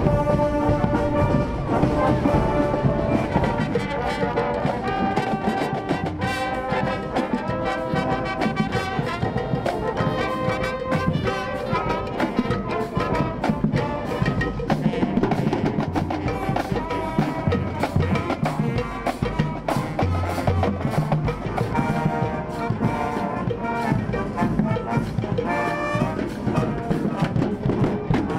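Marching band playing a march: brass, with sousaphones, over snare and bass drums.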